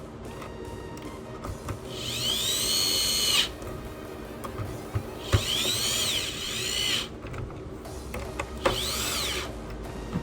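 Electric screwdriver driving screws, three short runs, each a whine that rises in pitch and falls away as the motor spins up and stops.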